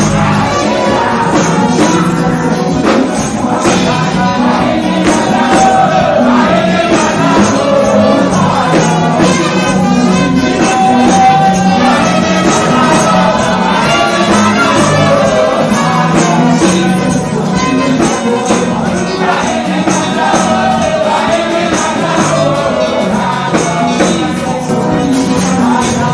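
Live gospel music: a girl and a man singing into microphones over a band with a steady percussion beat.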